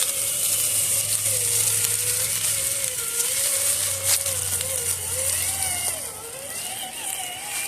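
Traxxas TRX-4 RC crawler's electric motor and gears whining as it crawls in first gear, the pitch wavering up and down with the throttle. A single sharp click about four seconds in.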